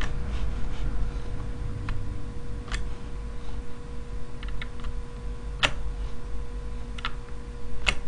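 Scattered single key presses on a computer keyboard, about eight or nine sharp clicks at irregular intervals, the loudest a little past the middle, over a steady low hum.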